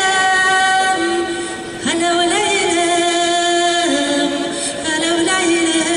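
A woman singing a Kazakh folk song, holding long notes that step from one pitch to the next, with a brief break and upward scoop about two seconds in.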